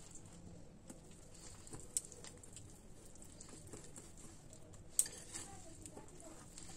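Chocolate cake batter being stirred by hand in a bowl, faint and soft, with two sharp clicks of the utensil against the bowl, about two seconds in and again near five seconds.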